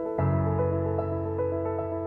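Background music: piano-led instrumental with short repeated notes over sustained chords, a new low chord coming in just after the start.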